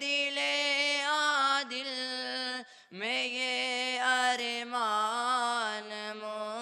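A young man's solo voice singing an Urdu naat unaccompanied, drawing out long held notes with wavering ornaments rather than words. There is a short break a little under three seconds in, after which the voice swoops up and carries on.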